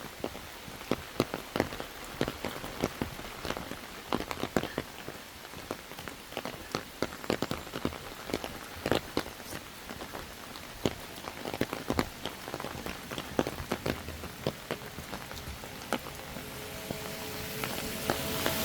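Irregular patter of many sharp taps, like drops falling on a surface. Near the end a steady rushing noise swells in, with a faint hum.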